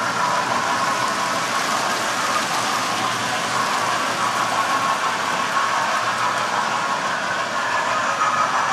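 Electric model trains running on the layout's track: a steady whirring and rolling that keeps up without a break.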